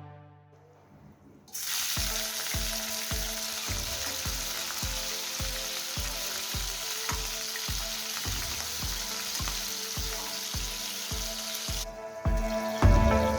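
Food sizzling in hot oil in a pan. The sizzle starts suddenly about a second and a half in and dies down near the end, over background music with a steady beat.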